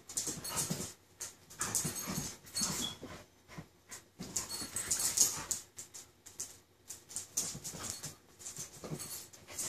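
Two dogs play-wrestling, with irregular bursts of huffing and panting as they mouth at each other, broken by short pauses.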